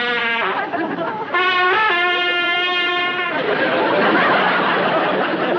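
Trumpet played by a beginner: long, loud held notes, the second one jumping in pitch partway through, as a boy practises. About halfway through the notes stop and a studio audience laughs.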